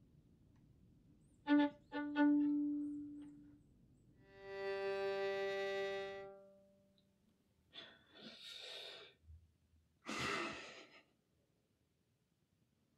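Violin bowed in separate single notes: a short note, a longer one at the same pitch, then a higher note held about two seconds. Two short breathy rushes of noise follow.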